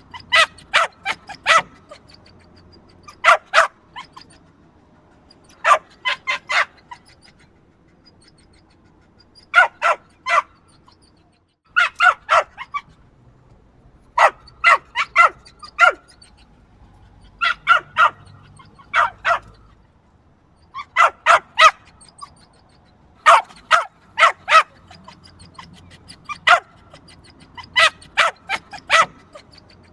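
Small yappy dog barking: sharp, high-pitched yaps in quick bursts of two to five, with short pauses between bursts.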